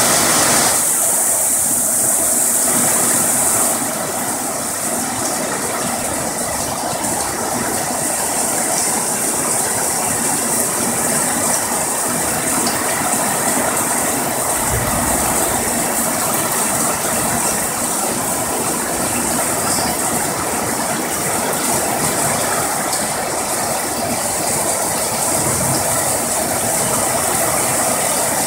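Heavy rain pouring down as a steady hiss, with water running off a roof edge and splashing onto the ground.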